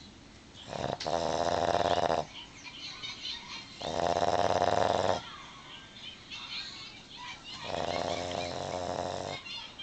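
Boston Terrier snoring in her sleep: three long snores, each about a second and a half, roughly every three and a half seconds.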